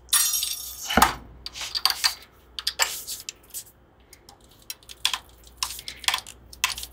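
Thin steel guitar string being wound by hand onto a Gibson Les Paul's tuning post: scattered light metallic clicks and ticks as the tuner turns and the loose string end rattles against the headstock, with a scraping rustle at the start and a sharper knock about a second in.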